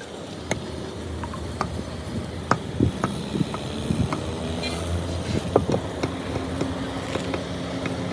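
A motor running steadily, with scattered sharp clinks and knocks.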